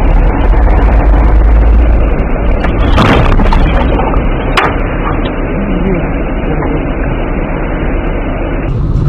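Loud, rumbling cabin noise of a car recorded by its dashcam, with a heavy bang about three seconds in as the car crashes, and a sharp crack about a second and a half later.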